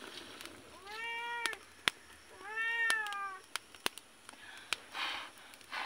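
Domestic cat meowing twice, each a drawn-out meow of about a second that rises and then falls in pitch. A few sharp clicks come between and after the meows.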